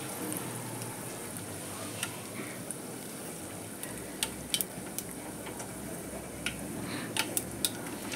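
Hot oil sizzling in an aluminium pot as chopped green chillies fry, with scattered sharp pops and crackles over a steady hiss.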